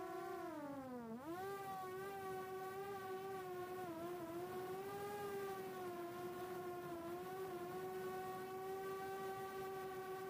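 Brushless motors and propellers of a 4-inch FPV quadcopter (HGLRC 1303.5 4500kv motors) whining in flight. The pitch sags as the throttle drops about a second in, climbs back, then holds mostly steady with small wavers.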